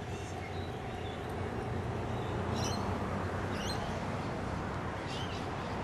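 Steady rush of highway traffic going by, with a few short, high bird chirps over it.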